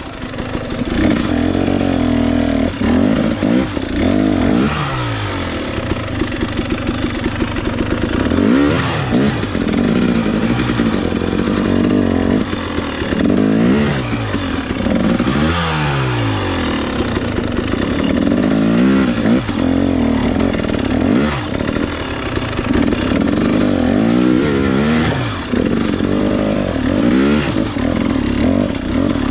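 300cc two-stroke enduro motorcycle engine revving up and falling back again and again, the throttle worked hard in short bursts as the bike picks its way over rocks, with some clatter from the bike.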